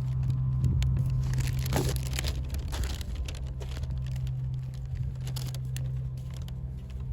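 Vinyl massage-table cover squeaking and crinkling irregularly as hands work under a client lying face up, with a steady low hum underneath.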